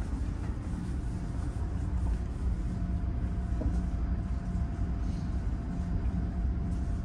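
Steady low drone of a ferry's machinery, heard from inside a passenger deck, with a faint steady hum over it.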